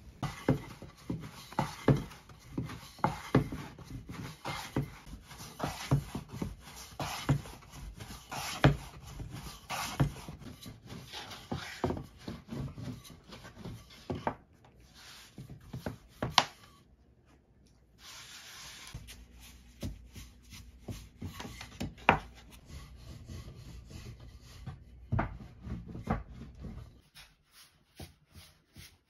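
Light knocks and rubbing on wood, as in kitchen handwork at a wooden board: irregular taps about one or two a second, a short lull around the middle, then an even hiss under further taps that dies away near the end.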